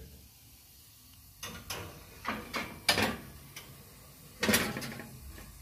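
Glass baking dish set down and slid onto the metal wire rack of an open oven: a run of clinks and scrapes, with the loudest knock about four and a half seconds in.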